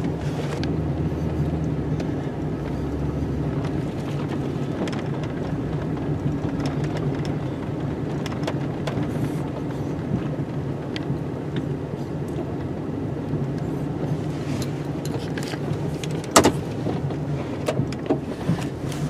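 Plow vehicle's engine running steadily while plowing the driveway, with scattered clicks and knocks and one sharp knock near the end.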